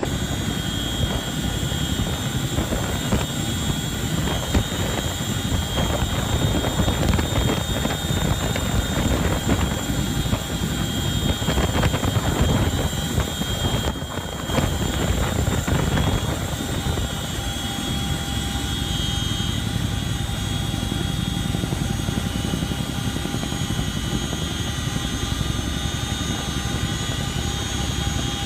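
CH-47 Chinook helicopter hovering with steady rotor noise and a high turbine whine. The sound dips briefly and changes character about halfway through.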